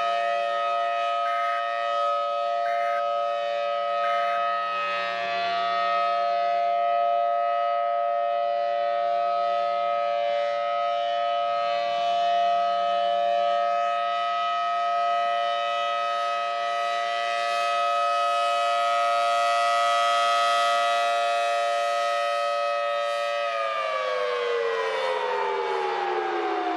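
Civil defense warning siren sounding a long steady tone, then winding down in pitch over the last few seconds.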